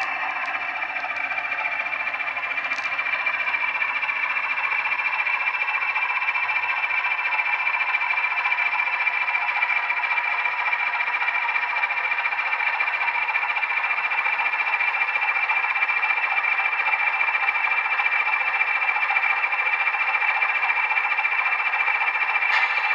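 Model Class 20 diesel locomotive's DCC sound decoder playing a Legomanbiffo Class 20 engine sound through a slim iPhone-type speaker as the model runs: a thin diesel running sound with little bass and a steady high tone through it, growing louder as the loco comes closer.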